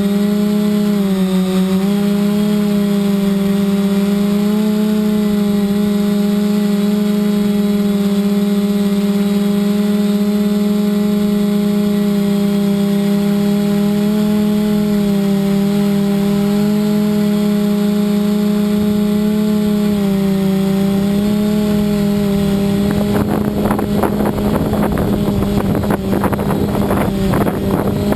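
Multirotor drone's electric motors and propellers running with a steady hum, the pitch dipping and rising slightly as the throttle changes. About five seconds before the end, wind starts buffeting the microphone in gusts.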